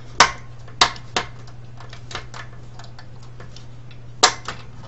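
Sharp clicks and clacks of plastic and sheet steel as a black part is worked loose by hand from the steel chassis of a dismantled DVD player: three in the first second or so, then a louder one near the end. A steady low hum sits underneath.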